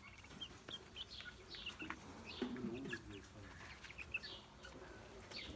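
Young white broiler chickens peeping: many short, high, falling chirps, scattered and overlapping, with a few clicks among them.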